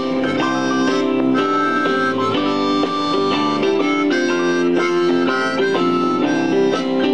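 Blues harp (diatonic harmonica) held cupped in both hands, playing a run of changing notes over a country jam backing track with guitar.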